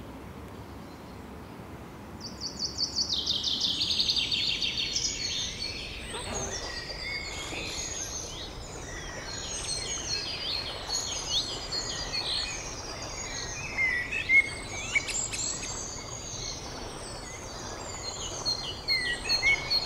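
Birds chirping over a steady background hiss. A fast high trill starts about two seconds in, followed by many overlapping chirps and short whistles.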